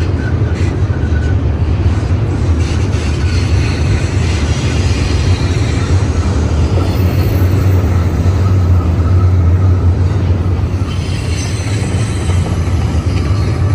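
A westbound BNSF intermodal freight train rolling past close by: a loud, steady rumble of wheels on rail. Faint high wheel squeals come and go.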